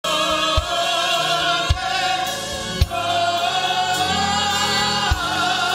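Church choir singing a gospel song, with sustained, wavering sung notes over steady low accompaniment and a low thump about once a second.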